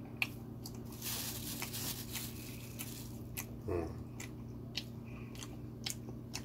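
Mouth sounds of a person chewing sticky glutinous rice cake (chapssaltteok) with the mouth closed: many soft wet clicks and smacks, with a short stretch of hissing noise about a second in and a brief hum of the voice a little past the middle. A steady low hum lies underneath.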